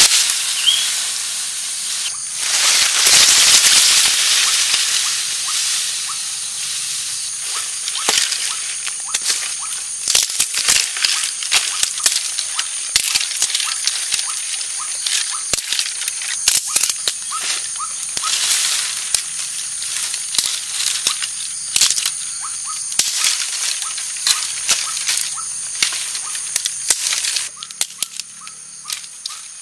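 Dry sticks and twigs rustling, cracking and snapping as they are broken by hand and piled on dry leaves: a rustling hiss over the first few seconds, then many sharp irregular snaps. A steady high-pitched drone runs underneath.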